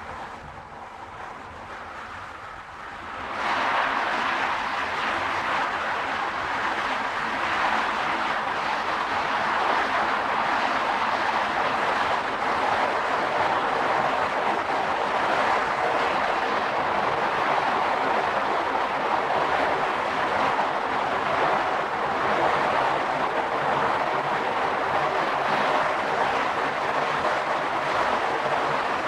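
A car driving at speed, its road and tyre noise jumping suddenly louder about three seconds in and then holding steady.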